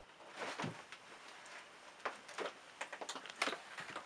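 Faint rustling and scattered light knocks and clicks of a person moving about and getting up in a small wooden room.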